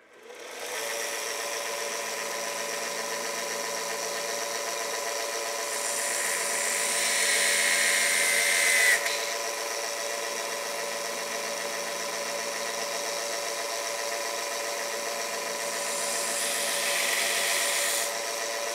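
A 1x30 belt sander motor spins up at the start and runs with a steady hum. A pizza cutter wheel is ground against the 220-grit belt for about three seconds, a hissing grind that builds and then stops sharply, and again more briefly near the end. These are test passes to check the bevel angle on a Sharpie-marked edge.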